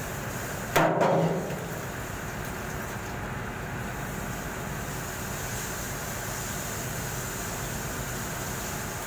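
A single sharp knock from hands-on work in a mining truck's engine bay, under a second in, ringing briefly as it dies away over about half a second. A steady machine hum continues underneath.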